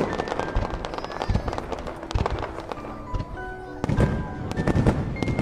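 Fireworks crackling and bursting, with music playing alongside; the bangs thin out about halfway through, when a short run of falling notes is heard, then come thick again near the end.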